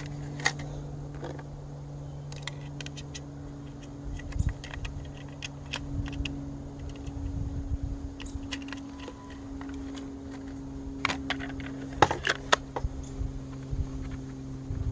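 Zippo hatchet-saw being converted from hatchet to saw by hand: scattered clicks, knocks and scrapes of plastic and metal parts being fitted together, with a quick run of sharper clicks about eleven to twelve seconds in. A steady low hum runs underneath.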